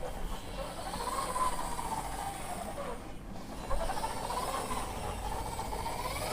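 A toy bus being rolled along, its small gearing whirring with a pitch that slowly rises and falls twice as it speeds up and slows down.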